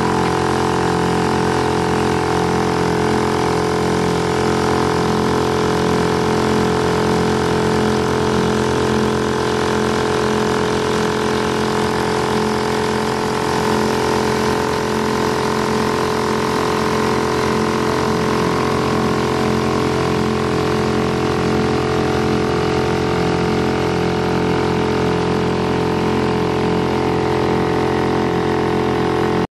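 Small outboard boat motors running steadily at cruising speed, an even drone with no change in pitch, over the hiss of water along the hulls.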